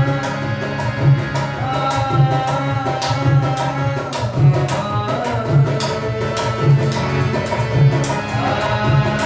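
Dholak drum playing a steady rhythm, a deep stroke about once a second with quicker light strokes between, under a held melody line that bends in pitch now and then.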